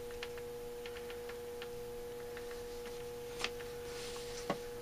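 Light clicks and taps of small metal parts being handled as a washer is fitted onto a Holley 4000 carburettor's choke housing, with two sharper clicks about three and a half seconds in and near the end. A steady high hum tone lies under it all.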